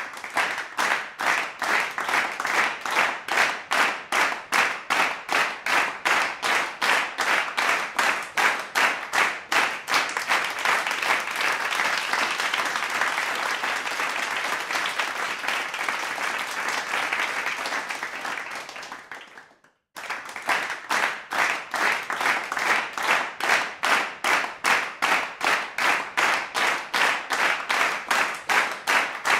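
A large crowd clapping in unison, about two to three claps a second, which breaks into general applause that fades away about nineteen seconds in. After a brief silent gap, rhythmic clapping in unison starts up again.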